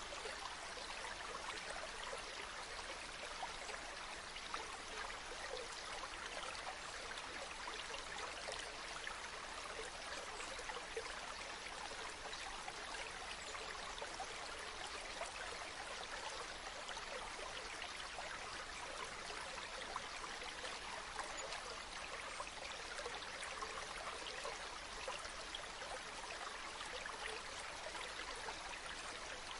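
Mountain stream running steadily over rocks, a continuous rushing and babbling of water with fine splashes.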